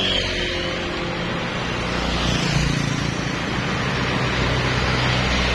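Bus engine running with tyre and road noise as it drives by, swelling slightly a couple of seconds in; no telolet horn sounds.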